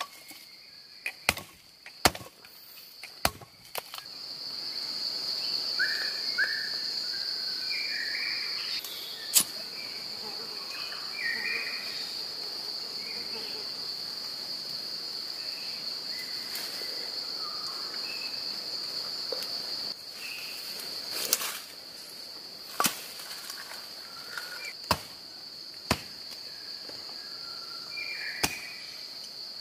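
A steady, high-pitched drone of forest insects that swells a few seconds in and holds. Over it come sharp knocks of a blade chopping firewood: a quick run at the start, then single strikes every few seconds.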